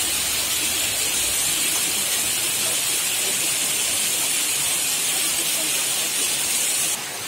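Water of a small waterfall and stream running over rocks: a steady hiss. It drops suddenly quieter near the end.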